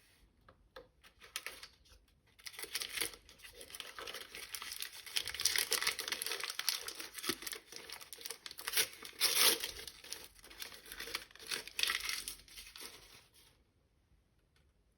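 Plastic toy packaging being crinkled and torn open by hand: a few light clicks and rustles first, then a long stretch of continuous crinkling that stops near the end.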